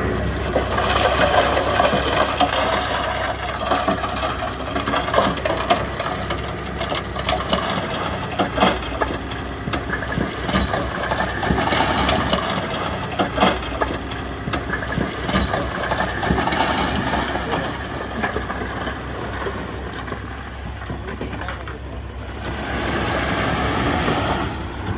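Heavy diesel earthmoving machinery running steadily, with repeated sharp knocks, rattles and cracks over the engine.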